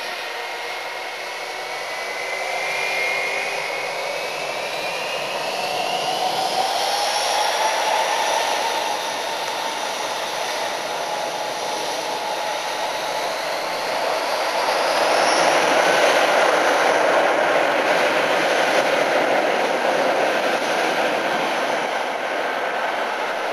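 Airbus A319-131 airliner's two IAE V2500 turbofan engines spooling up to takeoff thrust for the takeoff roll. A whine rises steadily in pitch over the first several seconds. The jet noise then grows louder and peaks about two-thirds of the way through as the airliner accelerates down the runway.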